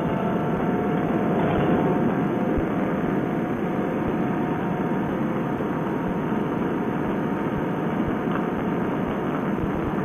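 Paramotor trike's engine and propeller running steadily at takeoff power through the roll across grass and the lift-off.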